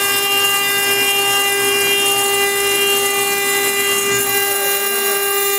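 CNC-1218 router's spindle running with a steady whine as its engraving bit cuts a stone slab under a water coolant spray, over a constant hiss of cutting.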